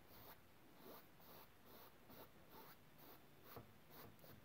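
Faint swishes of a broad paintbrush stroking oil paint across a stretched canvas, about two to three strokes a second.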